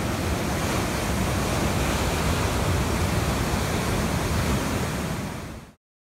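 Ocean surf breaking and washing over rocks, a steady rushing wash with wind rumbling on the microphone; it fades quickly and cuts to silence near the end.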